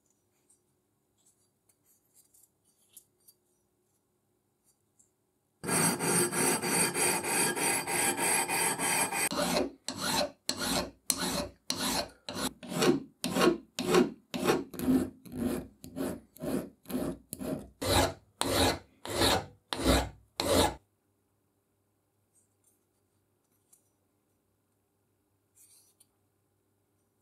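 Hand file rasping along the edge of a steel rebar-cutter jaw. It starts with about four seconds of fast, continuous filing, then goes on in separate strokes, a little more than two a second, for about eleven seconds before stopping.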